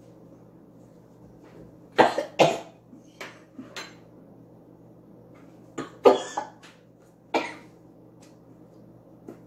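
Two people coughing and sputtering in sharp bursts, choking on spoonfuls of dry ground cinnamon and spitting the powder out. The coughs come in two clusters, starting about two seconds in and again past the middle.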